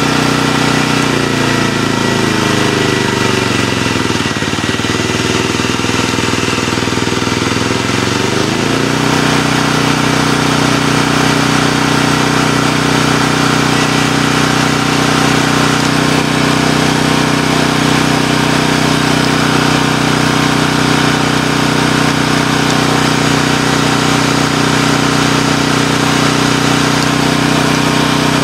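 Sportsman 4000LP propane generator's engine running at a constant hum; over the first several seconds its pitch sags and wavers, then about nine seconds in it comes back up and holds steady.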